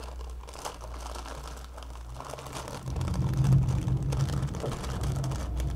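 Plastic squishy packaging crinkling as it is handled, with a low rumble of handling noise growing louder about three seconds in.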